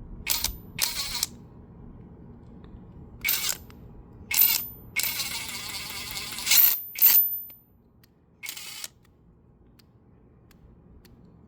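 Hyper Tough 12V 1/4-inch cordless impact wrench run in short trigger pulls, seven separate bursts with one longer run of about a second and a half in the middle. The forward setting is broken, so the wrench stays in reverse.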